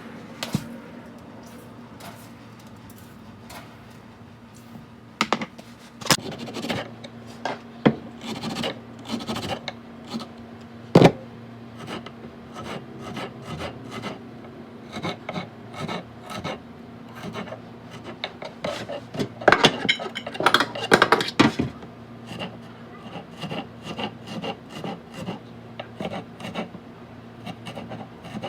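Kitchen work: irregular scraping and rubbing of utensils and dishes, with scattered knocks and clicks, over a steady low hum. A sharp knock comes about eleven seconds in, and a louder flurry of scraping about twenty seconds in.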